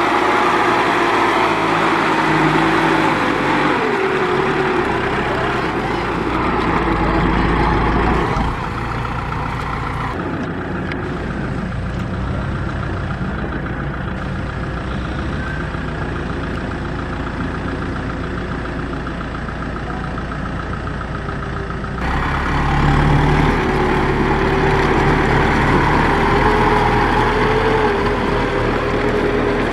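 Farm tractor's diesel engine working hard under load as the tractor and its trailer churn through deep mud, the engine note wavering up and down. The sound changes abruptly a few times as the footage cuts.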